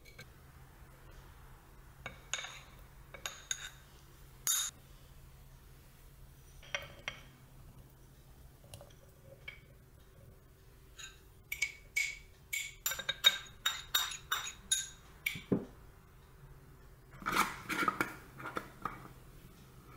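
Small clinks and taps of a spoon and fruit against a glass mason jar as berries are spooned in, with a quick run of clicks in the middle. Near the end, a gold metal screw lid is turned onto the jar's rim.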